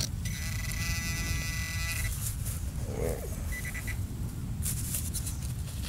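Electronic metal detector tones while a target is pinpointed in a dig hole: a buzzing tone for about a second and a half, then a few short high beeps, over low wind and handling noise.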